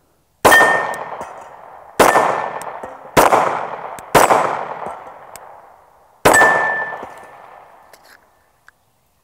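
Five 9mm shots from a Glock 48 pistol firing 124-grain HST rounds, about one to two seconds apart, each echoing out slowly. A clear ringing tone hangs after several shots: bullets striking steel targets.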